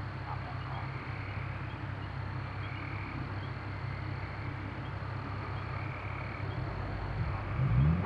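Nissan 370Z's V6 on long-tube headers and a non-resonated carbon-fibre-muffler catback exhaust, idling with a steady low rumble, then revving up near the end. Frogs call in pulses behind it.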